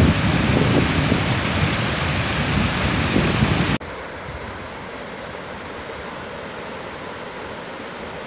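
Water rushing over rock ledges and through river rapids, with wind buffeting the microphone in low gusts. About four seconds in the sound cuts suddenly to a quieter, steadier rush of water.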